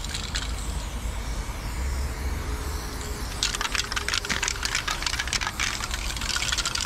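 Loop Colors aerosol spray paint can hissing in bursts: spraying stops just after the start, a longer sputtering burst comes in about halfway through, and spraying starts again near the end. A steady low rumble runs underneath.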